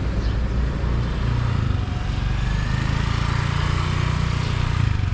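Close street traffic: motorbike and car engines running, a steady low rumble.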